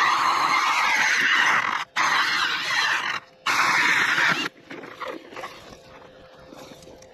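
Cordless Milwaukee drill spinning an ice auger that cuts through lake ice. It runs loud in three stretches, with short stops about two and about three seconds in, then goes quieter from about four and a half seconds, when the auger is lifted out of the finished hole.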